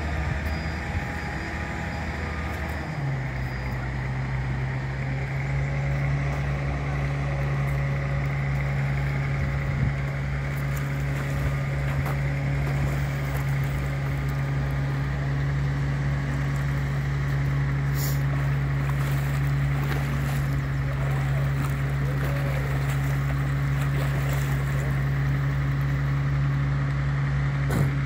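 An engine running steadily at constant speed, a low even drone whose pitch steps up and settles about three seconds in.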